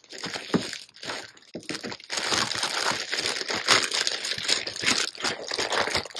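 Clear plastic packaging crinkling as products are pulled out of a plastic bag: a few scattered rustles at first, then dense, continuous crinkling from about two seconds in.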